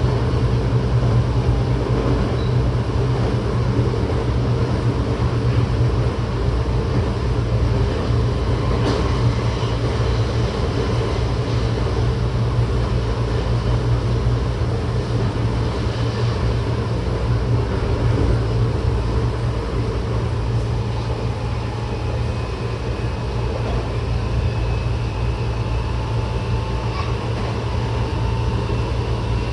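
Running noise of a Tokyo Metro 08 series electric train heard inside the car at speed: a steady low rumble of wheels on rails, with a faint high whine from its Mitsubishi IGBT-VVVF traction equipment coming in during the last third.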